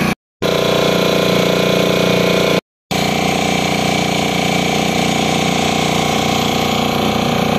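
Small motorboat's engine running steadily as the boat moves across the water. The sound drops out completely twice, briefly, in the first three seconds.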